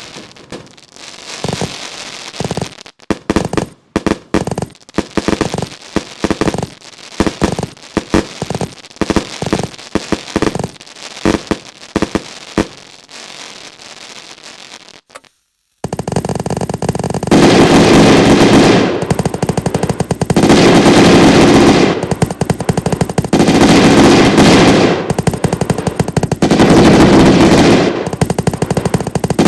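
Fireworks going off: scattered sharp bangs and crackles for the first half, then, after a brief dropout about halfway, a dense, very loud rapid-fire crackling in long bursts.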